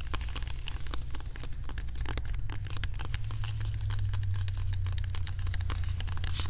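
Dense, quick clicks and taps of ASMR triggers right at a binaural microphone, over a steady low rumble.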